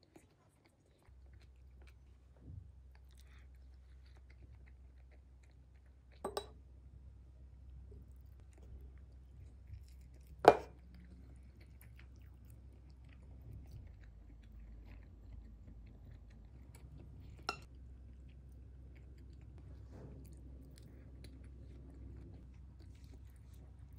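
A person chewing dumplings, with three sharp clicks of wooden chopsticks against a ceramic bowl, the loudest about ten seconds in, over a faint low hum.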